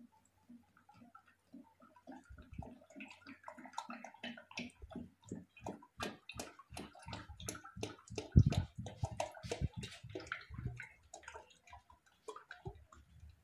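Used cooking oil glugging out of a plastic jug and splashing through a plastic strainer into a plastic bucket: a quick run of gulps that grows busier and louder midway and thins out near the end.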